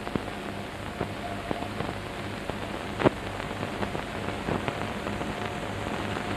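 Crackle and hiss of an old film soundtrack with scattered irregular clicks and pops, the loudest about three seconds in, over a steady low hum.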